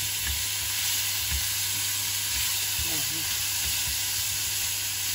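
Sliced beef and onion sizzling steadily in hot oil as they are stir-fried in a nonstick pan, with a few light knocks from wooden chopsticks stirring against the pan.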